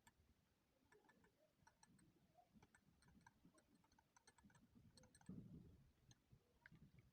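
Near silence with faint, irregular light clicks and ticks, and a soft low thump about five seconds in.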